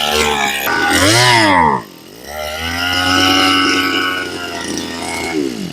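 Tanaka 23 cc two-stroke brush cutter engine revved hard on the throttle. It rises, drops back about two seconds in, then climbs and holds high before falling away and stopping near the end. This is a test run showing a very responsive throttle.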